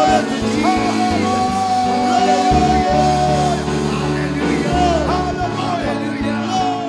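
Live church praise band playing, with held bass and keyboard notes, under voices singing and calling out with sliding pitch.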